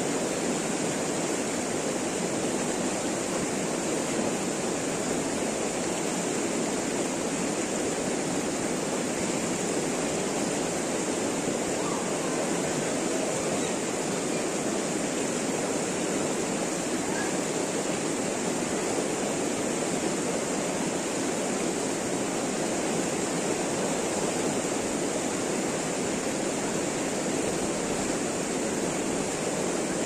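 Fast-flowing mountain river rushing steadily over rocks.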